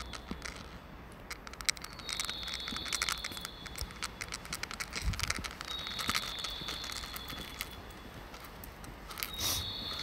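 Recorded birdsong played over a railway station's speakers: a short chirping phrase with a high held whistle, repeating about every three and a half seconds, three times. It is the kind of looped bird call that Japanese stations play as an audio guide for visually impaired passengers.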